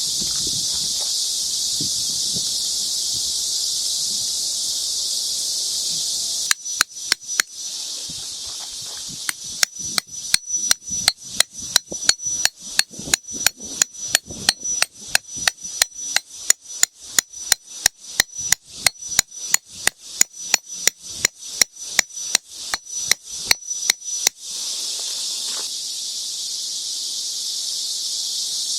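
Cicadas buzzing as a steady high-pitched drone. About six seconds in it changes to sharp rhythmic clicking pulses, about three a second, for some eighteen seconds, then the steady drone returns.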